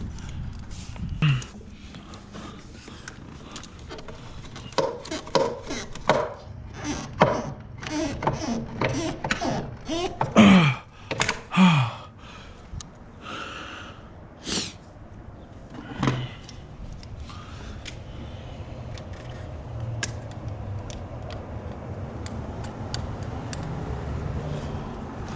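Irregular clicks, knocks and scrapes of a flathead screwdriver working a hose clamp loose, with a few short vocal sounds midway. A steady low hum underneath grows in the second half.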